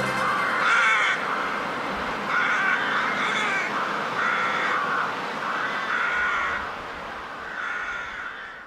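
Crow-like cawing, about six harsh calls spaced a second or so apart, fading out near the end.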